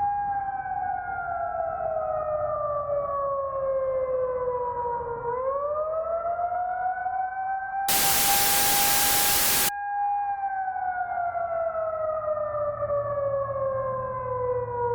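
Civil-defense-style siren wailing in one slow cycle: a steady tone slides down in pitch for about five seconds, sweeps back up and holds, then falls again. A burst of loud static blots it out for about two seconds midway.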